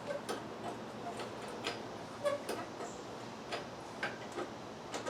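About ten short, sharp clicks and taps at irregular intervals from working the motorcycle lift and its ratchet tie-down straps.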